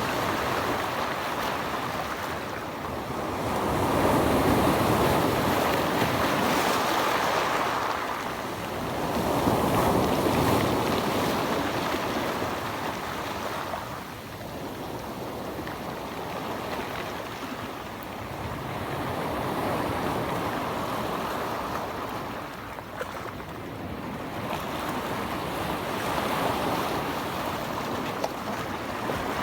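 Mediterranean sea waves washing in, the surf rising and falling in slow surges several seconds apart, with some wind on the microphone.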